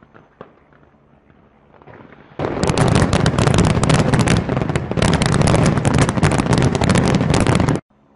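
Fireworks bursting in a dense, rapid crackle that starts suddenly about two seconds in, stays loud, and cuts off abruptly near the end.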